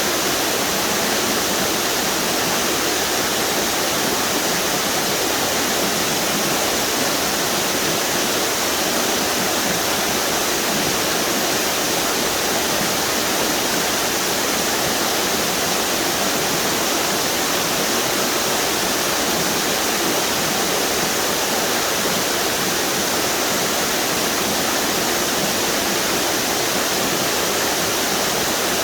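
A series of river waterfalls pouring steadily, a constant rushing of falling water.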